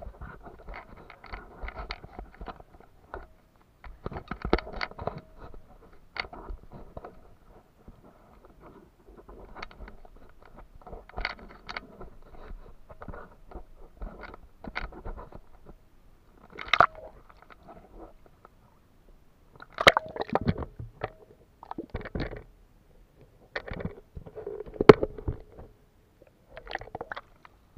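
Irregular muffled knocks, scrapes and splashes from a waterproof action-camera housing being handled and dipped into water, with the loudest bumps about 17, 20 and 25 seconds in.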